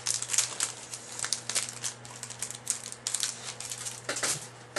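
Plastic wrapping on a pack of trading cards crinkling and being crumpled in the hands, in quick irregular rustles that thin out in the second half.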